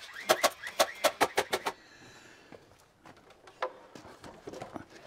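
Framing nailer driving nails into 2x6 studs in quick succession, about seven sharp shots in a second and a half, with a faint falling whine. After that come a few softer knocks of lumber being handled.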